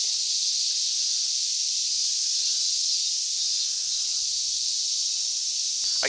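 Chorus of male cicadas giving their mating call: a steady, high-pitched drone that holds without change.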